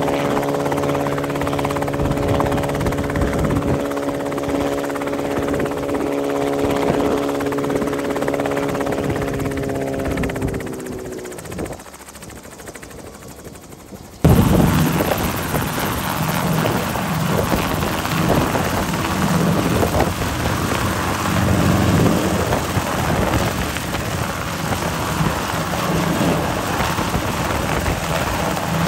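RotorWay 162F helicopter running on the ground with a steady engine and rotor note, which sags in pitch and dies away about ten seconds in as it winds down, leaving a quieter stretch. About fourteen seconds in, a cut brings an Enstrom helicopter running on the ground, a louder, rougher, rushing rotor and engine sound.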